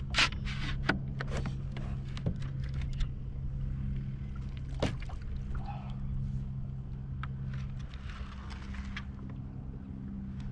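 Hard plastic fish-measuring board and gear being handled on a kayak: a quick run of clicks and knocks in the first few seconds, a single sharper knock about halfway, and a soft rustle near the end, over a steady low hum.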